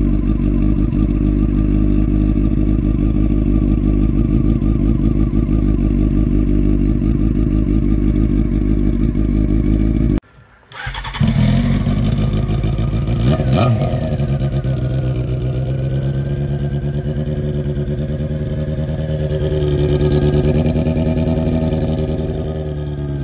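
Honda CBR sport bike engine running close up through an aftermarket slip-on muffler, idling steadily just after starting. About ten seconds in the sound cuts out, and a second later the engine is running again, with a quick blip of the throttle and later a slow rise and fall in revs.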